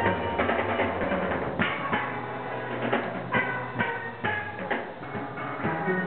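Steel orchestra playing steel pans: quick, rhythmic struck metallic notes that ring on, over a steady bass line, with drums and percussion keeping the beat.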